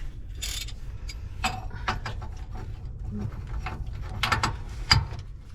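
Hand tools and metal parts clicking and knocking at the upper shock mount of a motorhome's front suspension, with a few sharper metal clicks near the end.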